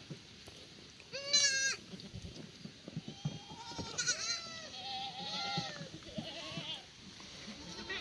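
Black goat kids bleating: one loud, wavering high bleat about a second in, then a run of shorter bleats through the middle.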